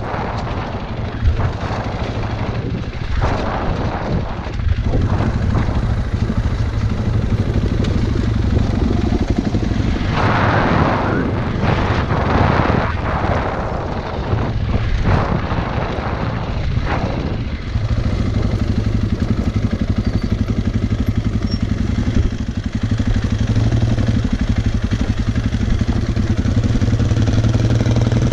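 Off-road motorcycle engine running, with a string of noisy surges in the middle and a steadier drone near the end.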